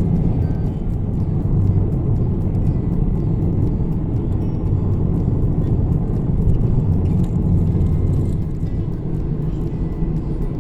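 Steady low rumble, like a car in motion.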